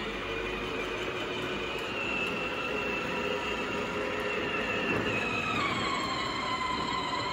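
Pilsan battery-powered ride-on toy jeep driving on a concrete garage floor: the electric motor and gearbox whine steadily over the rumble of its plastic wheels rolling. The whine drops in pitch about five seconds in and climbs back near the end.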